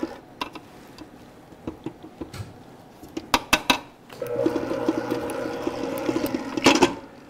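Electric stand mixer beating a thick filling of glutinous rice, cream cheese and sugar: it stops at the very start, a few sharp clicks follow in the quiet middle, then the motor runs again for about three seconds, loudest just before it cuts off near the end.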